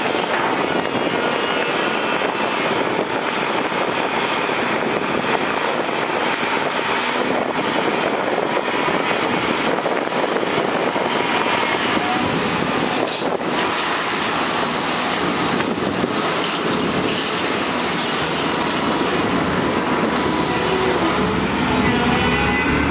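Volvo EC480DL crawler excavator's diesel engine and hydraulics running steadily under load as it digs and swings buckets of earth and rock. There is a short knock just past halfway, and the engine note rises near the end.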